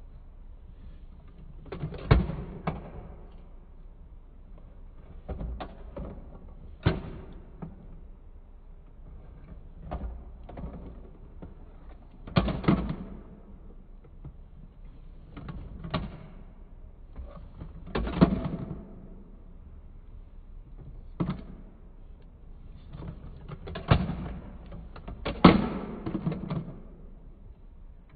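Plastic clacks and knocks from a toy recycling truck's side-loader arm being worked by hand, gripping and lifting a small plastic bin. The sharp knocks come irregularly, every few seconds.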